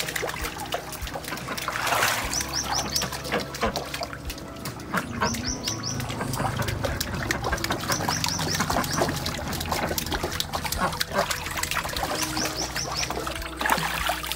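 Hands rubbing and sloshing pig intestine in shallow stream water, with irregular splashes throughout. A small bird chirps in quick runs of three or four high notes, several times over.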